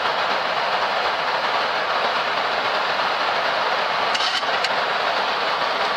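Steady rushing noise inside a Boeing 737 MAX cockpit in the climb after takeoff, from air streaming past the nose and windshield along with the engines at climb power. A couple of faint clicks come about four seconds in.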